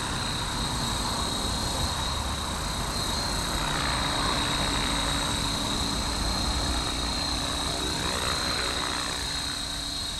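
Blade Fusion 360 electric RC helicopter in flight, with a steady high motor-and-rotor whine. The rotor noise swells and fades a few times as the helicopter moves about.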